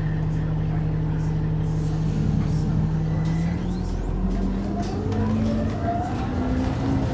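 Cummins B6.7 diesel engine of an El Dorado E-Z Rider II BRT bus, heard from inside the passenger cabin, idling steadily, then about three and a half seconds in rising in pitch as the bus pulls away through its Allison automatic transmission.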